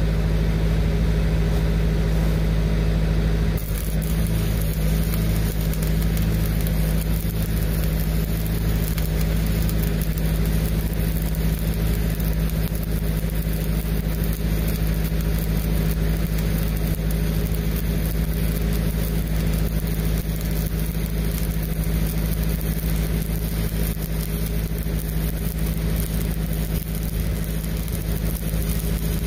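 Diesel engine-driven pipeline welder (Lincoln Pipeliner 200D) running steadily under load. From about three and a half seconds in, the frying crackle of a low-hydrogen stick electrode arc sounds over it as the uphill bead is run.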